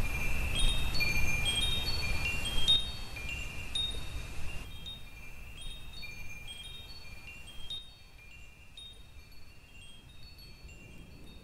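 Wind chimes ringing: scattered high metallic notes at irregular moments, fading gradually in two steps toward the end.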